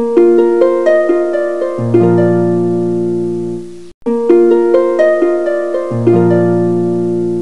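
Background music of plucked harp-like notes in a short repeating phrase, breaking off for a moment about four seconds in before starting over.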